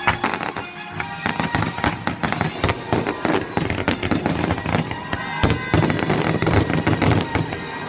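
Fireworks bursting in quick succession, many bangs and crackles overlapping, with music playing along.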